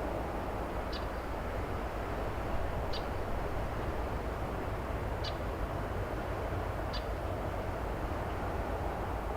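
Steady low rumble of an excavator working some way off, with short high chirps about once every two seconds over it.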